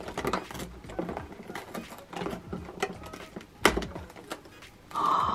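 Cardboard advent-calendar door being scratched at with fingernails and torn open: scattered crackling and scraping, a sharp snap about three and a half seconds in, and a longer rasping rip near the end.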